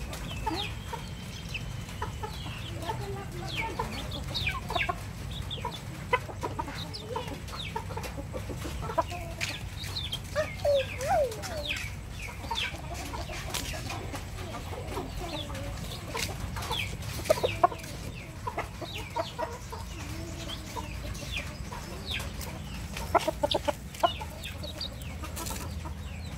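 Free-ranging chickens calling: a chick peeping in short high chirps scattered throughout, with lower hen clucks mixed in and a few louder calls later on, over a steady low background rumble.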